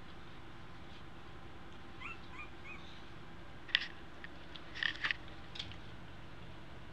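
Two-week-old American Eskimo puppies squeaking and whimpering. Three small rising squeaks come about two seconds in, then a few sharper, louder squeals between about four and five and a half seconds, over a steady low hum.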